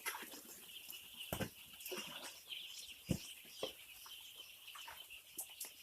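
A flock of five-day-old chicks peeping in a dense, continuous chorus. A few sharp knocks stand out, the loudest about a second and a half and three seconds in.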